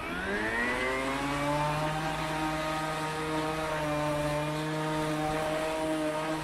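Cordless electric rotary lawn mower starting up: its motor and belt-driven blade spin up with a rising whine over about the first second and a half, then run at a steady pitch.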